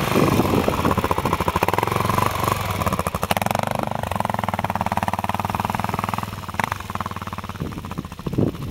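Enduro motorcycle engine running close by with a rapid, even firing beat. It grows quieter in the last couple of seconds.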